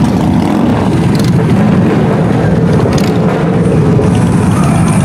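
Many V-twin cruiser and bagger motorcycles riding slowly past at once, their engines running together in a steady, loud, low din.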